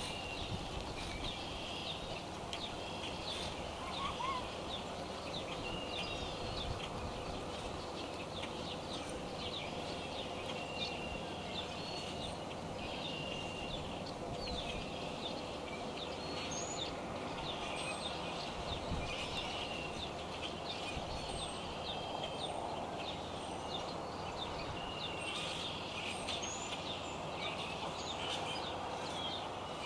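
Steady rain shower noise, with many short, high bird chirps and whistles repeating throughout.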